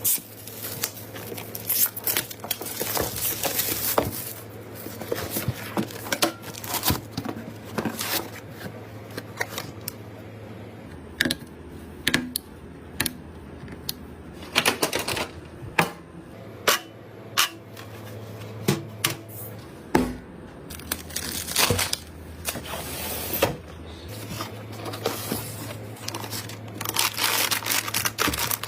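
Hands handling plastic packaging and computer parts: crinkling and rustling with many scattered sharp clicks and knocks, over a steady low hum.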